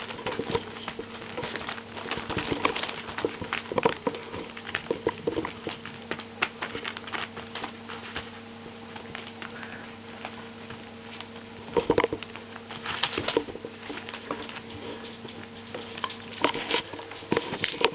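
Busy, irregular patter of small clicks and scuffs from puppies moving about, with a louder cluster about two-thirds of the way through. A steady low hum runs underneath.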